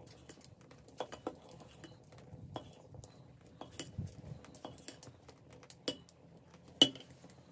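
Steel ladle stirring kadhi in a steel pot, clinking and scraping against the sides, with short metallic rings after several strikes. One clink, near the end, is much louder than the rest.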